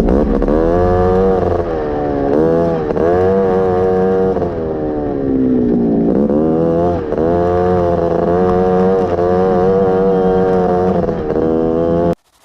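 Honda Odyssey FL350 buggy's single-cylinder engine under hard riding, its note rising and falling several times as the throttle is worked. The sound cuts off suddenly near the end.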